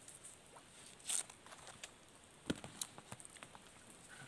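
Quiet background with a brief rustle about a second in, then a sharp click and a few lighter ticks.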